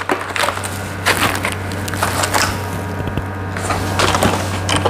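Hot-air SMD rework station blowing onto a phone's flux-covered eMMC chip: a steady hum and hiss with irregular crackling as the flux paste heats.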